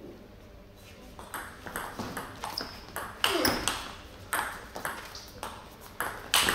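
Table tennis rally: the ball struck back and forth off the bats and the table in quick, irregular clicks, starting about a second in, with the sharpest hits a little after three seconds and near the end.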